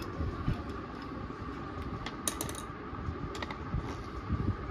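Light clicks and clinks of small metal and plastic parts as a petrol chainsaw's carburetor and air-filter base plate are worked on by hand and with a screwdriver, with a small cluster of clicks a little past two seconds in, over a steady background hum.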